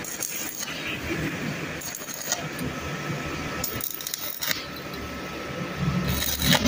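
Stick (arc) welder crackling as the electrode burns along the corner joint of thin-walled 3x3 cm square hollow steel tube, run at a low current of about 25 to 30 amps.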